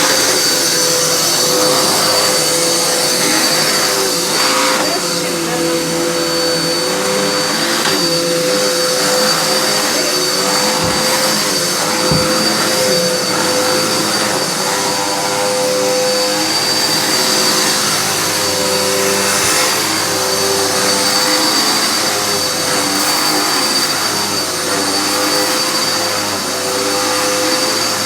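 Dirt Devil Endura Reach compact upright vacuum running loud and steady, a motor drone with a high-pitched whine over the rush of suction air.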